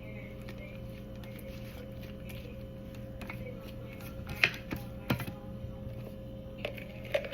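A few light clicks and taps from handling kitchen items, mostly in the second half, over a steady low hum.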